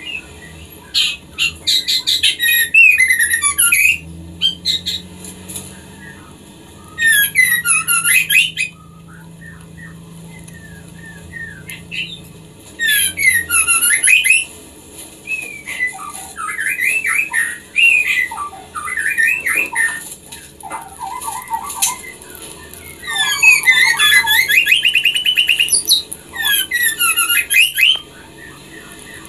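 White-rumped shama (murai batu) calling in bursts of rapid, varied whistled and chattering phrases with short pauses between, offered as a female in breeding condition calling to a male.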